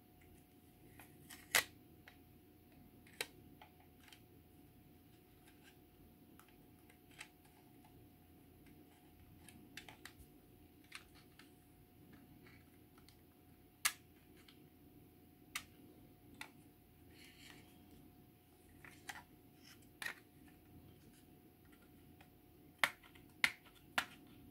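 Irregular sharp clicks and taps of hard plastic model-kit parts being handled and fitted, about a dozen, with a quick cluster near the end, over a faint steady hum.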